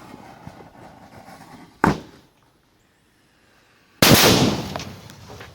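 A short sharp bang about two seconds in, then a much louder explosion near the end that dies away over about a second: a homemade explosive charge blowing apart a microwave oven.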